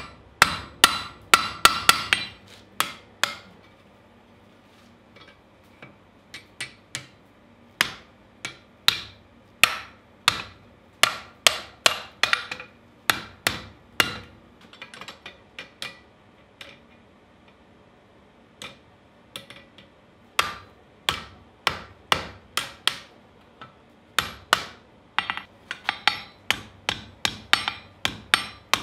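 Blacksmith's hand hammer striking red-hot steel on an anvil while shaping a hoe blade: sharp ringing blows in quick runs of several a second, with two short pauses of a few seconds.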